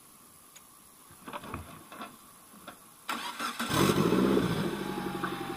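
A few light clicks, then a turbocharged lawn tractor's engine is cranked by its starter about three seconds in. It fires within about half a second and settles into a steady, pulsing idle.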